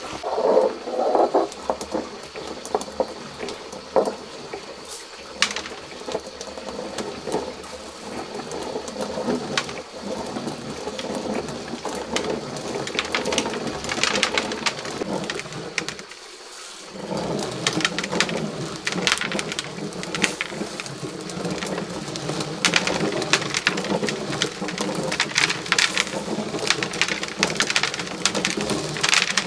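Hand-turned stone quern grinding dried corn: the upper millstone grates round on the lower one, with a steady rough grinding and a dense crackle of kernels being crushed. There is a short break about halfway through.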